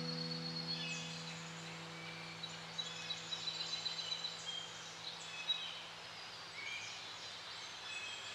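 Birds chirping and calling in short high notes over a soft, even hiss of outdoor ambience. A low held note of meditation music fades out over the first few seconds.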